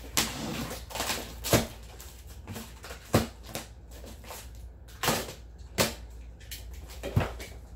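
Large cardboard case being opened: tape along the top cut and the cardboard worked loose, a rustling and scraping broken by about six sharp cardboard snaps and knocks.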